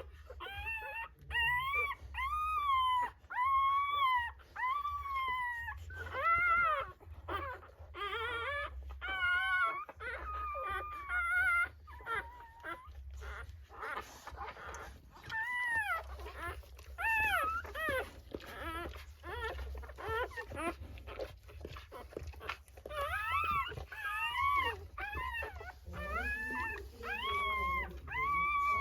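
Newborn Rottweiler puppies crying: a run of short, high-pitched whines that rise and fall, one after another, with several voices overlapping near the end, over a low steady hum.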